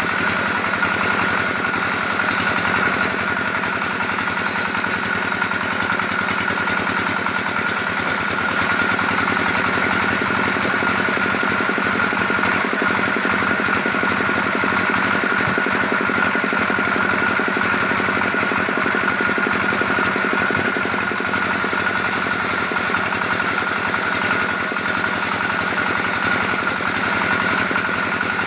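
Engine-driven saw running steadily as it cuts a teak log, with an even high whine over the engine.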